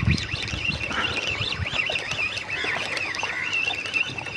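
Birds chirping and chattering without a break, a busy twittering chorus. A few low thumps come in the first second and a half.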